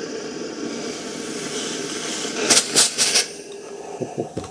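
Rowenta Steamforce DW9230 steam iron buzzing steadily as it pumps steam. A little past halfway it gives a quick run of loud, sharp hisses from its steam shots.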